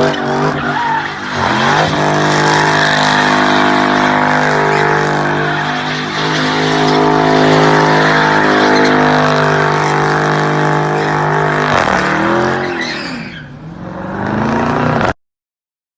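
Jeep engine revving, then held at steady high revs for about ten seconds during a burnout, with tire hiss over it. The revs rise and fall again before the sound cuts off suddenly near the end.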